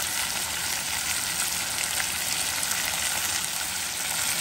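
Meat frying in oil in a cast-iron pot, browning for plov with chopped onion just added on top: a steady sizzling hiss with small crackles.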